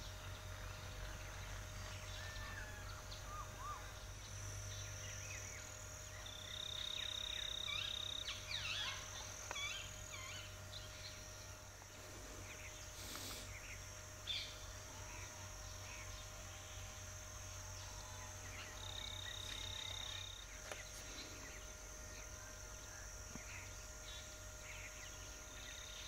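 Rural outdoor ambience: scattered bird calls and chirps over a low steady background hum, with a long held whistled note twice, once about a quarter of the way in and again past the two-thirds mark. There is a brief click about halfway.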